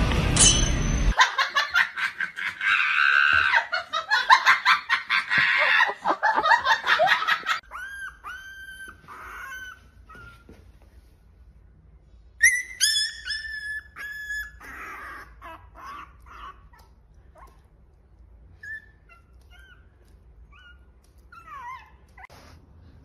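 Background music that stops about a second in, followed by several seconds of a loud, rapid pulsing sound. Then a young puppy cries in short, high, curving whines with pauses between, which grow fainter toward the end.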